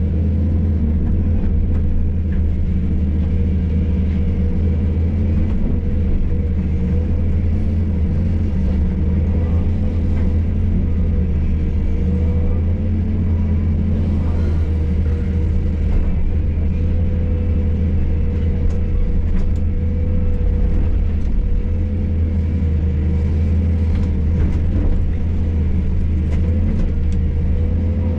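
Hydraulic excavator's diesel engine running steadily while working, a low drone with a steady higher whine over it, and a few light knocks in the second half.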